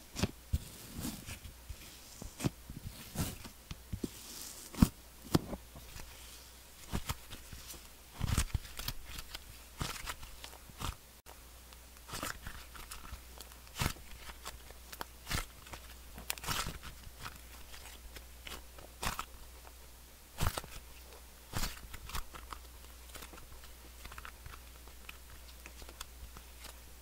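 Hands squeezing, stretching and folding a glitter-topped butter slime, making irregular sticky clicks and small pops, sometimes in quick clusters. Butter slime gives few real bubble pops.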